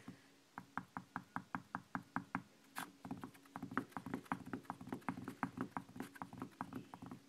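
Rapid light taps on a hard surface, about six a second, like fingers drumming impatiently. About three seconds in they become quicker and less even, with one sharper click just before.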